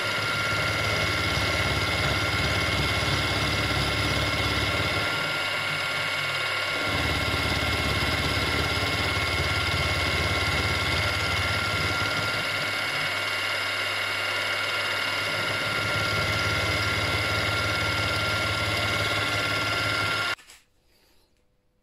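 Bench milling machine running with a steady spindle whine as its end mill cuts into an aluminium engine crankcase, the lower rumble of the cut swelling and easing at times. It cuts off suddenly about 20 seconds in.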